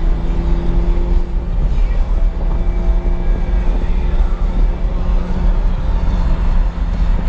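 Ferrari 550 Maranello V12 engines running at steady revs, a loud, deep, even drone with a held engine note.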